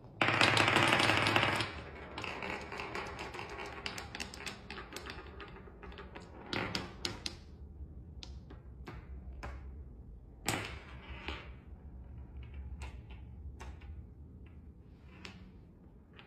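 Marbles clattering down a marble run. A loud, dense rush of clicks fills the first second and a half, then a fast rattle of rolling and clicking slowly thins out, with a few sharper single clacks later on.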